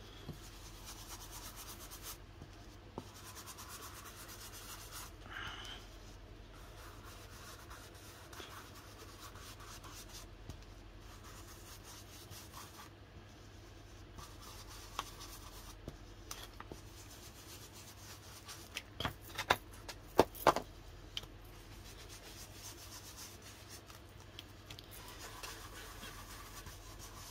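Paper being rubbed with ink, a soft repeated scuffing as tea dye distress ink is worked into the paper. A few sharp taps or clicks come close together about two-thirds of the way in.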